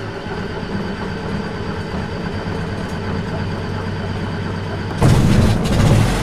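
Light aircraft's piston engine and propeller running at idle just after start-up, heard from inside the cockpit. It runs steadily, then grows louder about five seconds in.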